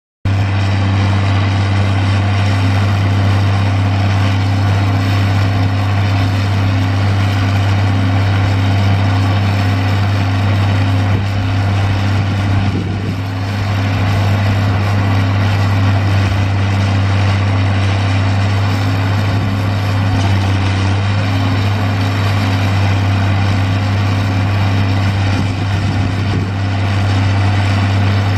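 John Deere 690C excavator's six-cylinder diesel engine running at a steady speed, with no revving.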